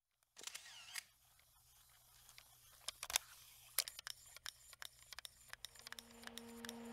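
Faint, scattered clicks and ticks at an uneven pace, with a soft low held tone fading in over the last second and a half.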